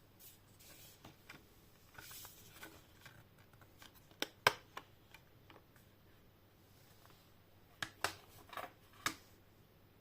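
Hands handling a steelbook disc case and its packaging. Light rustling comes first, then sharp clicks and taps in two clusters: one about four seconds in, and another between about eight and nine seconds in.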